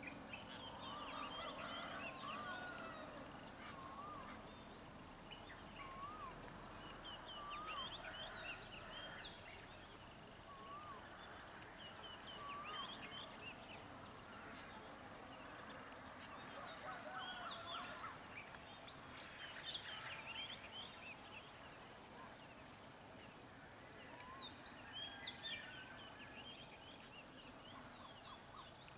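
Several small wild birds calling in trees, faint: quick high chirps and trills throughout, with a short wavering note repeated every second or two in the first half.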